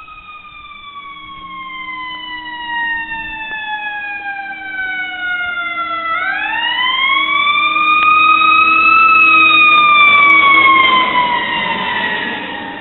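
Emergency vehicle siren on a slow wail: the pitch falls for about six seconds, swoops back up, then falls again, growing loud past the middle and fading toward the end. It belongs to crews responding to downed power lines.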